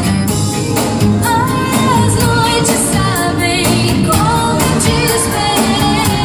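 Music with a vocal melody over a steady beat, played loudly throughout.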